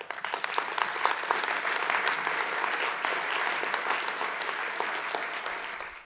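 Audience applauding: many hands clapping in a dense, steady patter that fades a little near the end.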